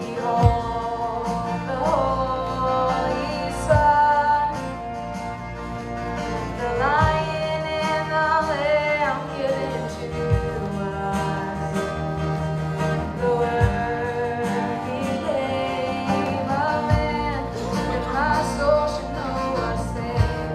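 A choir and live band performing a slow worship song: a singer at a microphone carries a gliding melody over choir, guitar and keyboards, with a low beat every three seconds or so.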